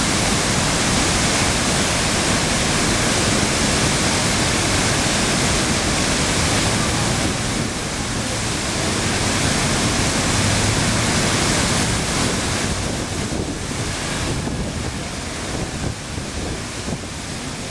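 Rhine Falls waterfall: a loud, steady rush of falling water, a little quieter over the last few seconds.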